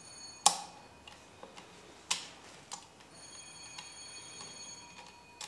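A few sharp metallic clicks of small steel parts of an antique sewing machine being handled and fitted, the loudest about half a second in, with a faint high metallic ring lingering after the first click and again through the second half.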